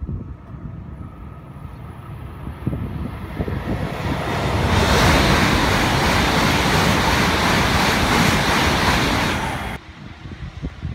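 Hokuriku Shinkansen E7/W7-series bullet train passing at speed: a rushing roar of air and wheels that builds over a few seconds, holds loud for about five seconds, then cuts off suddenly near the end.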